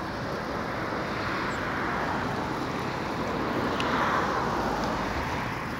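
Inline skate wheels rolling on asphalt, a steady rough rolling noise that swells about four seconds in.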